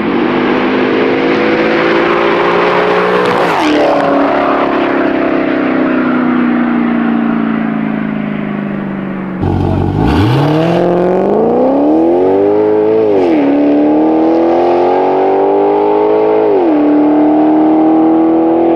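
Maserati GranTurismo S's V8, straight-piped with an X-pipe, at full throttle. Its tone rises for a few seconds, drops sharply and winds down slowly. Then, from a standstill, the car launches hard and accelerates away, the pitch climbing through two upshifts.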